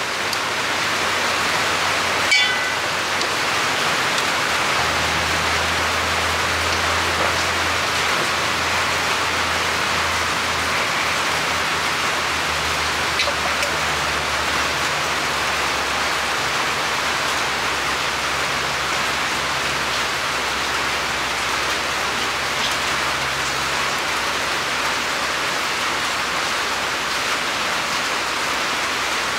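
Steady heavy rain falling, an even constant hiss that does not let up. A faint low hum runs underneath through the middle, and there are a couple of small clicks.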